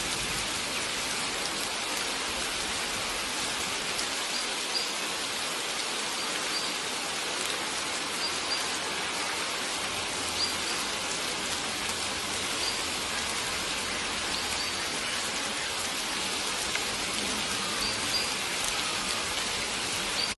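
Steady rain falling, mixed with the rush of a flowing stream, at an even level.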